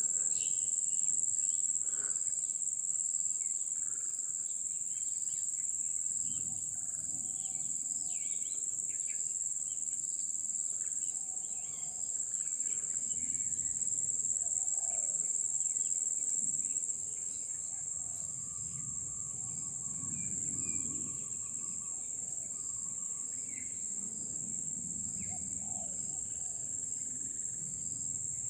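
Insects droning steadily on one high pitch, with scattered short bird calls and chirps over it and low rumbles at times.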